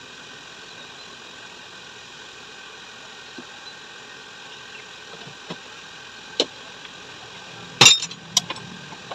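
A few sharp metallic clinks and knocks as a motorcycle mono-shock and its parts are handled during the repair, the loudest near the end, over a steady background hum.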